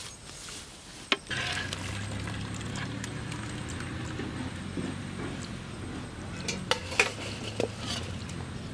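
A perforated metal ladle scooping boiled potatoes out of a pot of water and tipping them into a steel bowl, with metal clinks of ladle against pot and bowl: a sharp knock about a second in and a cluster of clinks near the end. A steady low hum runs underneath from about a second in.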